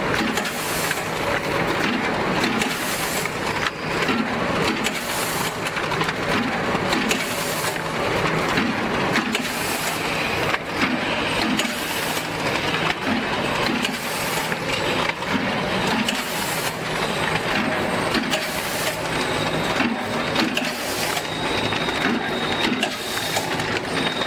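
Premade pouch packing machine running, its outfeed conveyor carrying filled pouches: a steady mechanical clatter with frequent sharp clicks and knocks all through.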